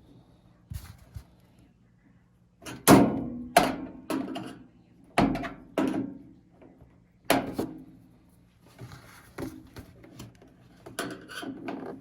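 Plastic housing parts of a nugget ice maker being pried and handled during disassembly: a series of separate sharp knocks, clunks and clatters, about one every second or so.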